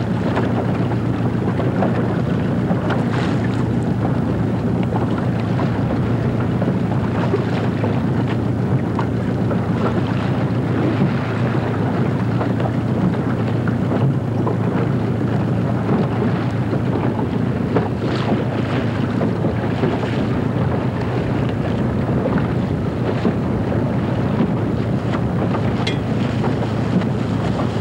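Steady wind buffeting the microphone, with the wash of water around a boat.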